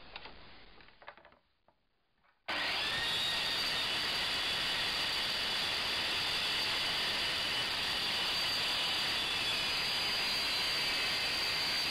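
Dust extractor (shop vacuum) running steadily with a faint motor whine, coming in suddenly about two and a half seconds in after a few faint handling noises.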